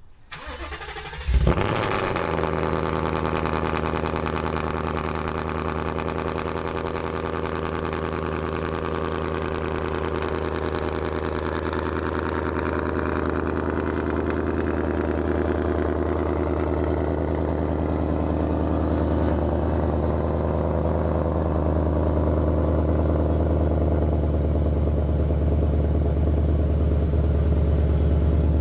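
Ford Mustang GT's Gen3 Coyote 5.0 V8 cold-starting: a brief crank, then it catches with a loud flare about a second in and settles into a steady fast idle. It is heard through long-tube headers and a resonator-deleted H-pipe.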